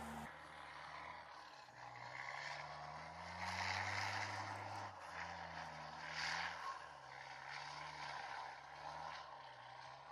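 Amphibious Combat Vehicle's diesel engine running, its pitch rising and falling as it changes speed, under a rushing noise that swells twice.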